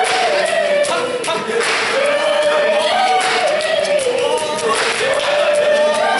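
A group of voices singing unaccompanied in a Zulu ingoma song, with short sharp hits every second or so.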